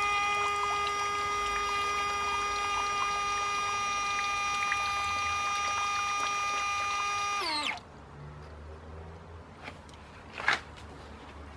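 Small brushed electric motor driving a toy radio-controlled jet ski's water-jet pump, running with a steady high-pitched whine and then spinning down with a falling pitch about seven and a half seconds in. A short knock comes near the end.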